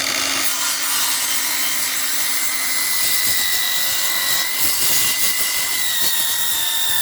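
Bauer 20-volt cordless circular saw with a framing blade cutting through a pressure-treated 4x4, running steadily: a high motor whine over the noise of the blade tearing through the wood.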